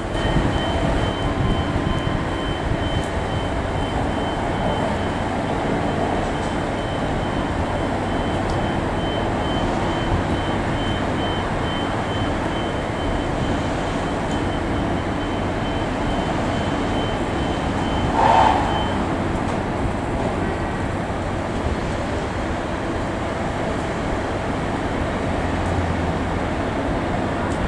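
Rail yard switcher's engine running steadily as it moves stored cars, with a high, evenly pulsed beeping that stops about two-thirds of the way through. A short burst of noise comes just before the beeping ends.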